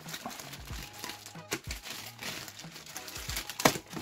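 Grey plastic mailing bag being crinkled and torn open by hand: crackling plastic with a few sharp rips, the loudest near the end.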